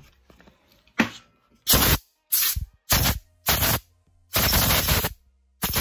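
Bursts of compressed air from an air-compressor blow nozzle, about seven in quick succession, one lasting about a second near the end, blowing dirt off around a two-stroke string trimmer's carburetor.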